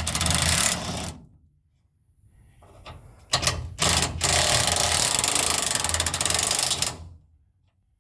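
Ratchet spanner clicking rapidly as a loosened chassis-rail mounting bolt is spun out. Two runs of fast clicking: a short one ending about a second in, then a longer one from about three seconds to seven seconds in.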